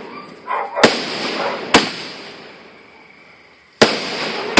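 Fireworks going off: four sharp bangs in two pairs, the first pair about a second in and the second near the end, each followed by a fading crackling tail.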